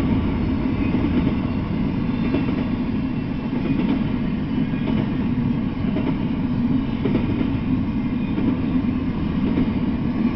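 Double-stack intermodal freight train's well cars rolling past, a steady low rumble of wheels on the rails.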